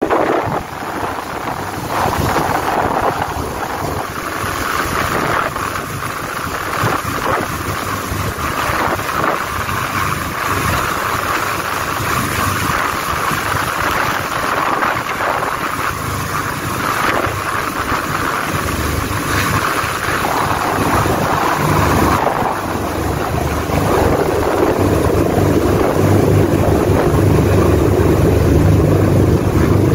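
Rescue helicopter hovering close overhead, its rotor and engine noise mixed with heavy wind buffeting on the microphone. The low rotor thumping grows louder over the last several seconds.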